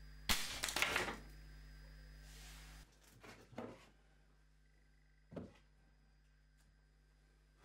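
A .20 calibre Weihrauch HW99 spring-piston air rifle fires about a third of a second in: a sharp report and the pellet's impact on a chocolate-covered nut bar and the board behind it, over in under a second. Later come a couple of brief rustles and knocks as a hand picks up the shattered bar and its wrapper.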